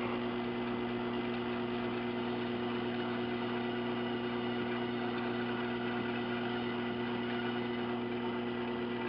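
Small lathe motor running steadily at its slowest setting with an even hum, spinning a brass clock wheel while a Scotch-Brite pad is held against it to polish off tarnish.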